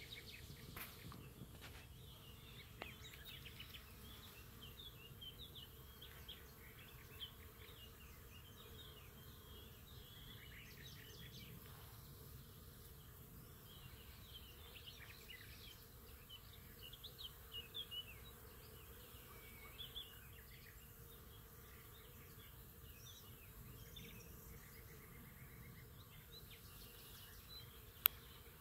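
Bees buzzing faintly, with scattered bird chirps throughout and one sharp click near the end.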